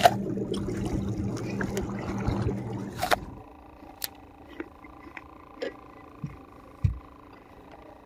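A small boat's motor running with water washing along the hull, a steady low hum that cuts off about three seconds in. After it stops there is a quiet background with a few faint clicks and taps.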